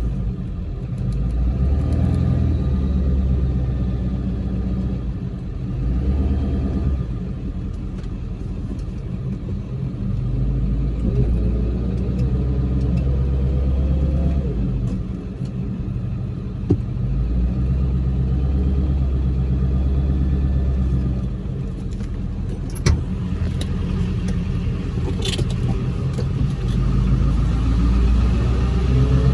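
Car on the move: a steady low engine and road rumble that swells and eases in long stretches, with two sharp clicks in the second half.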